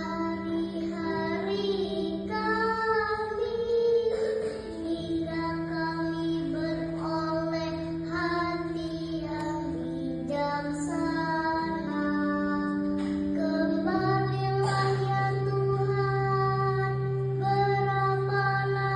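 A kindergarten-age child singing a responsorial psalm as cantor, a clear melody over held accompanying chords that change every few seconds.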